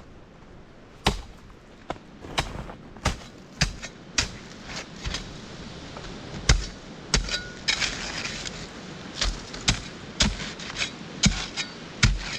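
Mastiff tactical sapper shovel with sharpened steel edges chopping into hard, crusty, icy snow: a series of sharp blows, roughly one or two a second, with a short stretch of scraping about two-thirds of the way through.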